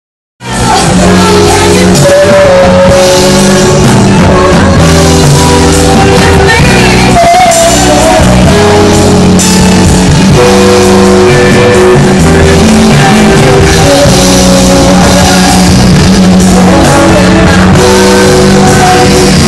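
A rock band playing live, loud, with a singer over electric guitars and drums; the music comes in just after a brief gap at the start.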